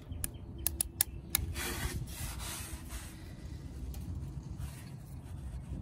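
A rubber hose being worked by hand onto a plastic fitting: several sharp clicks in the first second and a half, then rubbing and scraping of rubber against plastic, strongest about two seconds in and fainter after.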